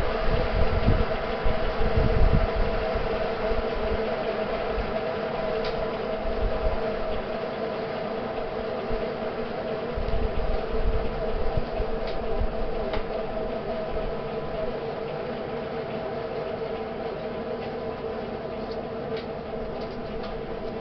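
Fairchild J-44 turbojet running on a test stand: a steady whine over a rush of air and exhaust, with some low rumbling in the first few seconds, slowly getting quieter.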